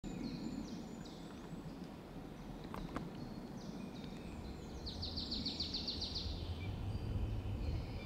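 Several songbirds singing in a spring woodland, a scattered mix of short calls, with one bird's rapid trill of about ten notes around the middle. A low rumble rises under the birds in the second half.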